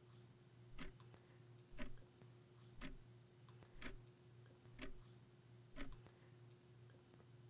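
Wall clock ticking faintly, about once a second: six even ticks.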